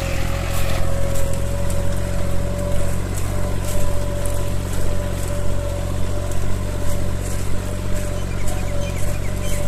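John Deere 5310 tractor's diesel engine running steadily under load while pulling a disc harrow through dry soil, with a steady whine above the engine note. Irregular light clicks and rattles come from the harrow as its discs work the ground.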